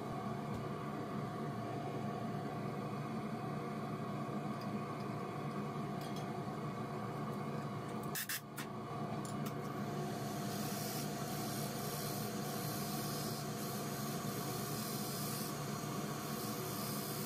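A wood lathe and workshop machinery run with a steady hum. A few clicks come about eight seconds in. From about ten seconds in, the turning tool hisses as it cuts the spinning wooden lid blank.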